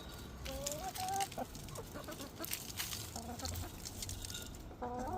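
Backyard hens clucking and calling, a few short rising calls with soft rustling and scratching in between.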